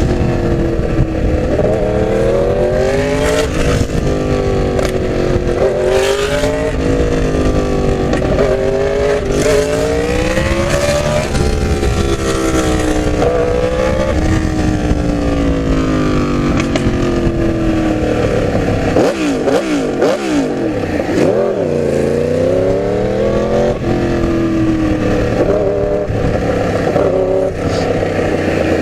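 Yamaha R1 inline-four engine heard while riding, the pitch climbing with the revs and dropping back at each gear change, over and over. About two-thirds of the way through the pitch falls several times in quick succession, as on downshifts, with wind rushing over the microphone throughout.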